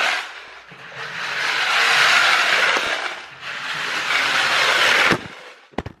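Early Learning Centre clockwork toy combine harvester running across a hard floor close by, its wound-up spring motor and gears whirring loudly in long swelling surges until it stops about five seconds in. A few sharp knocks follow near the end.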